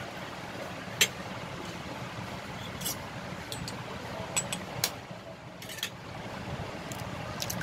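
An egg tapped and cracked against the rim of a stainless steel bowl: a sharp click about a second in, then several lighter clicks and taps a few seconds later. A steady low hum runs underneath.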